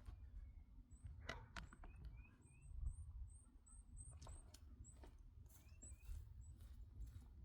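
Near silence with faint, high bird chirps repeating in quick runs, a few soft clicks, and a low rumble underneath.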